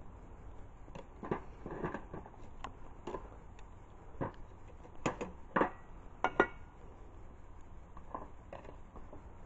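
A series of irregular clinks and knocks, as of hard objects being handled and set down, a few with a short metallic ring.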